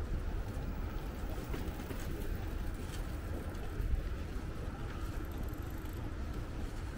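Steady low rumble of outdoor ambience, with a few faint irregular ticks.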